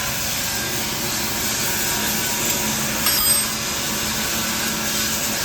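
A power tool running steadily, a continuous even noise with a faint low hum, and a single short click about three seconds in.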